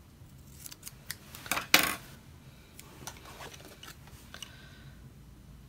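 Scissors cutting through masking tape: a few small clicks, then one short loud cut just under two seconds in, followed by scattered light clicks and taps.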